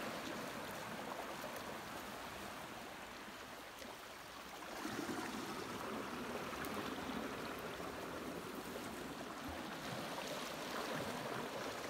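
Sea water washing along the shoreline, a steady rushing of water that swells a little about five seconds in.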